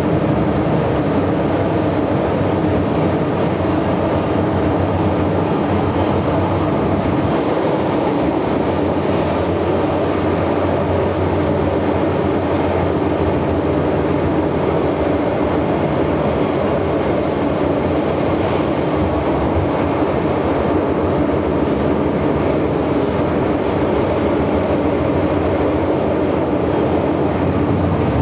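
An MTR M-Train running at speed through a tunnel, heard from inside the passenger car: a steady, loud rumble of wheels and motors. A few faint high squeaks come through in the middle.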